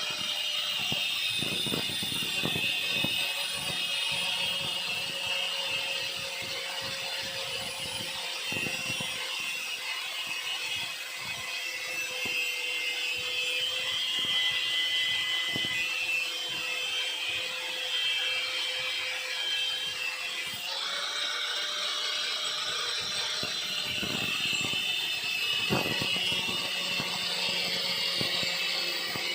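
Angle grinder grinding metal: a steady motor whine under a hissing, grinding noise, with a few small knocks. The tone shifts slightly about two-thirds of the way through.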